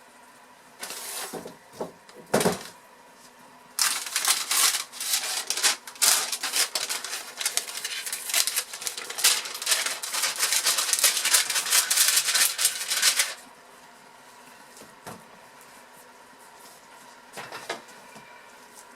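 Rapid, dense scraping and clicking from about four seconds in, stopping suddenly about nine seconds later, with a few shorter scrapes before and one near the end: a freshly unmolded loaf of hot process soap being scraped clean.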